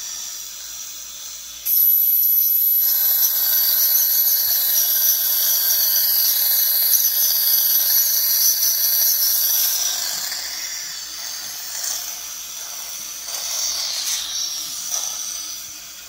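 Dental scaler running in the mouth during a teeth cleaning: a steady high whine over hissing water spray and suction. It starts sharply about two seconds in and eases off about ten seconds in, leaving a softer hiss.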